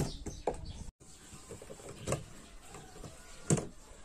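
A few sharp knocks and clunks from a compact camera on a loose tripod ball head being handled and tipping forward, the loudest about three and a half seconds in. The ball head is too loose to hold the camera's weight.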